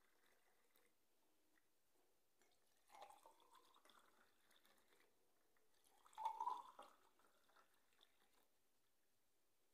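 Faint pouring of lemon-mint drink from a steel jug into glasses over ice cubes, with two louder bouts of liquid splashing into the glass, about three seconds in and, loudest, about six seconds in.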